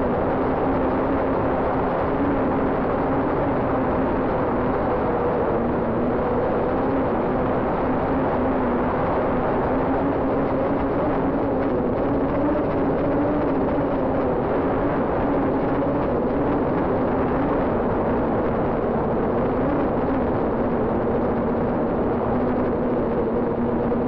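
Drone's motors and propellers whirring in flight: a steady hum with a tone that wavers slightly in pitch, over even rushing noise.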